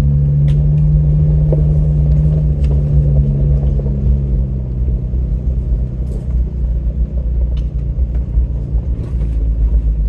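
Off-road truck engine running at low speed, heard from inside the cab, a steady low drone that eases off about halfway through. A few sharp knocks and rattles from the vehicle body jolting over the rough trail.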